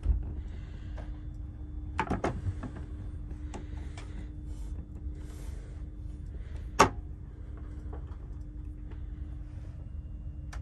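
Seat-back fold-down tray table on a TGV being handled and unfolded: a quick cluster of clattering clicks about two seconds in, and one sharp knock near seven seconds as the leaf is laid flat. A steady low hum from the stationary carriage runs underneath.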